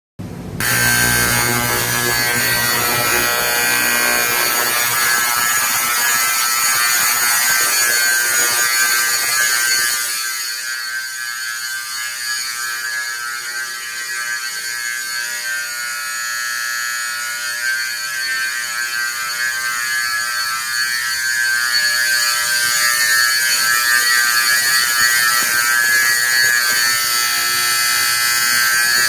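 Simplex 4050 12-volt AC fire alarm horn sounding steadily: a loud, harsh electric buzzing blare that switches on abruptly at the start. About ten seconds in its lower tones drop away and it gets slightly quieter.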